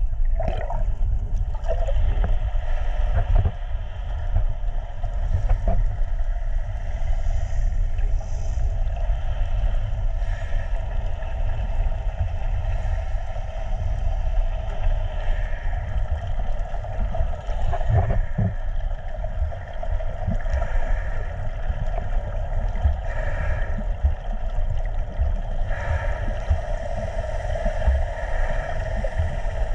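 Underwater: a steady low rumble and drone of boat engines carried through the water, with a few brief knocks.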